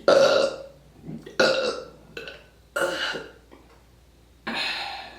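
Deliberate burps on command: four belches about a second and a half apart, each starting suddenly and fading over about half a second, the first the loudest.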